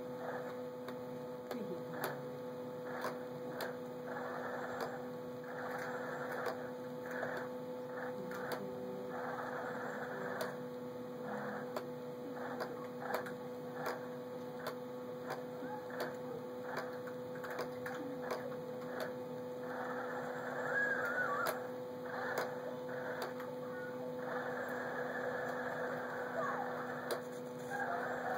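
Steady electrical hum throughout, with bursts of rough noise that start and stop every second or two and frequent sharp clicks.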